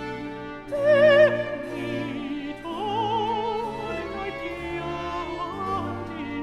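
Countertenor singing long held notes with vibrato over a baroque string orchestra with harpsichord; the loudest note comes about a second in and slides down, followed by further sustained phrases.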